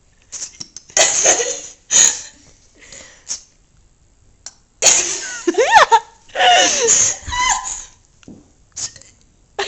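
Bursts of human laughter and shrieking, with sweeping rises and falls in pitch, and a short sharp burst about two seconds in.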